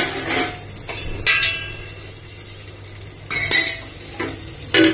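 Metal cookware clinking and knocking against a hammered metal cooking pot: four sharp, ringing clinks spread out, the loudest knock near the end, as the pot of curry holding a hot coal is covered with a metal plate to trap the smoke.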